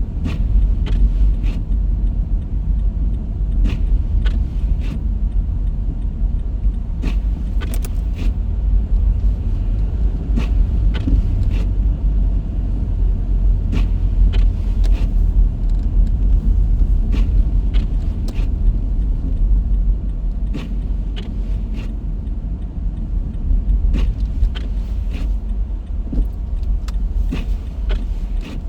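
Steady low rumble of a car driving, heard from inside the cabin, with scattered sharp clicks and rattles throughout.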